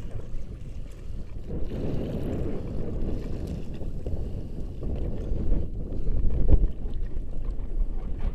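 Wind buffeting the microphone on open water: a steady low rumble, with a stronger gust about six and a half seconds in.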